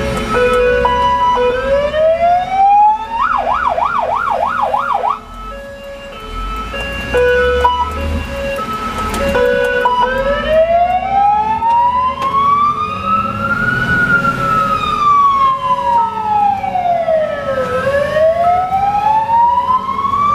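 Fire engine sirens responding to a call, heard from inside the cab. A wail rises and breaks into a brief fast yelp a few seconds in, then sweeps slowly up and down twice, over a repeating two-note hi-lo tone and a low engine rumble.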